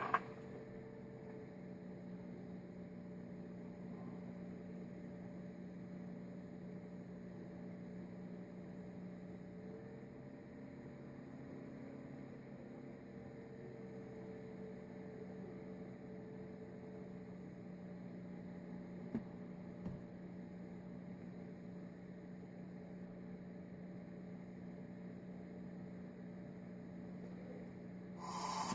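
Steady low hum, with a couple of faint ticks and a brief rustle near the end.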